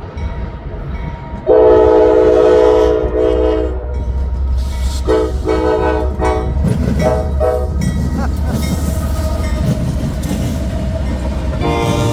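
Locomotive air horn on a passing Norfolk Southern train being played as a horn show: one long blast, then three short blasts, then another blast starting near the end. Under it the train rumbles by continuously.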